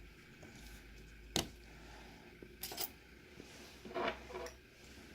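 Small sharp clicks and taps of hard plastic and metal parts being handled during a tablet battery replacement: a single crisp click, then a quick double click, then a short scratchy scrape.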